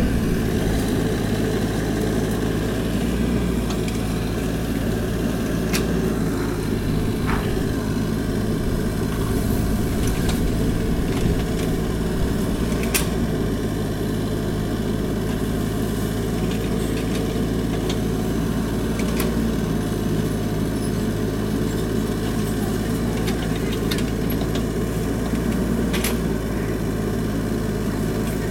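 Mini excavator's engine running steadily as it digs hard laterite soil, with a few sharp clicks or knocks scattered through.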